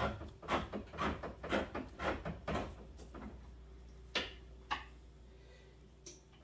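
A metal can of condensed soup being opened and emptied: a run of rhythmic clicks and scrapes, about two a second, that stops after a couple of seconds, then two sharp knocks near the middle.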